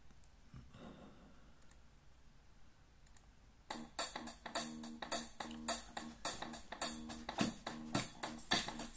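Faint room sound for the first few seconds, then a recorded pop backing track starts about four seconds in with a steady drum beat.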